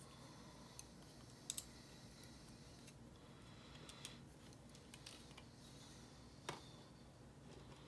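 Small metal lock parts and tools being handled, giving a few faint scattered clicks over near silence, the loudest a quick pair about one and a half seconds in.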